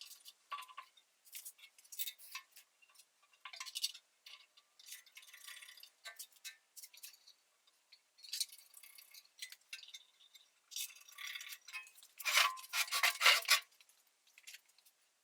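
Metal parts and hand tools clinking and rattling as they are handled while the drive pulley is fitted back onto the jointer's cutterhead shaft, in scattered light clicks with a louder burst of rattling clinks near the end.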